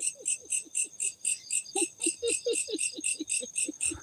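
Insects chirping in a steady rapid pulse, about six to seven chirps a second, with a second, irregular series of short, lower-pitched calls mixed in.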